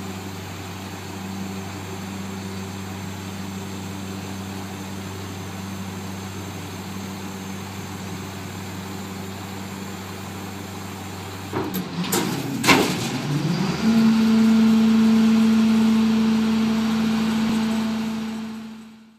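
CAT 3126 diesel of a Peterbilt 320 garbage truck running steadily, then a few sharp clanks about twelve seconds in as the rear packer is engaged. After that the engine and hydraulics settle to a louder, steady, higher pitch, driving the Leach Alpha rear-loader's packing blade through its cycle.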